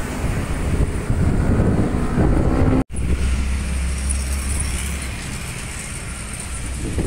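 Road traffic: a Scania coach's engine running as it pulls away, then a sudden cut to motorcycles and other traffic passing over a steady low rumble.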